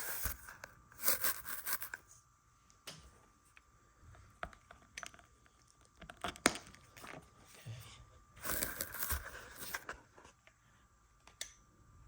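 Rustling, crinkling handling noise with a series of sharp clicks and knocks as an R-net joystick cable connector is plugged into a power wheelchair; the loudest click comes about six and a half seconds in.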